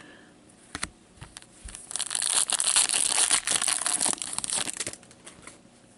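A foil trading-card pack torn open by hand and its wrapper crinkled. There are a few light clicks first, then a dense crackling from about two seconds in that lasts about three seconds.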